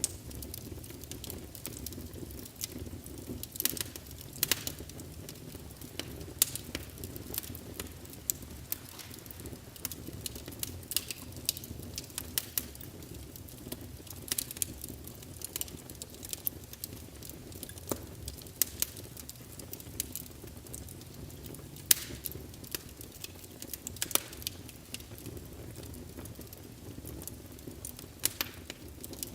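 Wood fire burning in a fireplace: a steady low rumble of the flames with irregular sharp crackles and pops, a few louder snaps among them.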